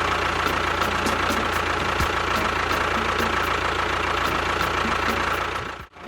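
An engine running steadily at idle with a faint steady whine, cutting out abruptly just before the end.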